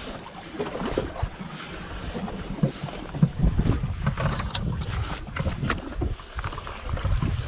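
Wind buffeting the microphone in gusts, over small waves lapping against jetty rocks, with scattered light knocks and scrapes of handling.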